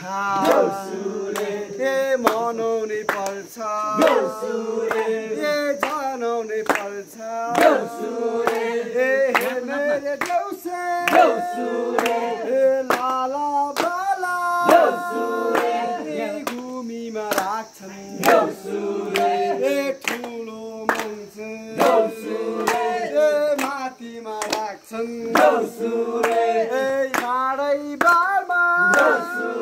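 A group of men's and women's voices singing Deusi festival songs together, with hand claps keeping a beat throughout.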